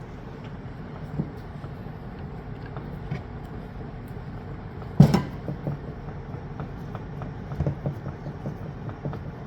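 Light metal clicks and scrapes as a hydraulic fitting is threaded by hand into a hydraulic cable cutter's head, with one sharp knock about halfway through and a few smaller ones later, over a steady low hum.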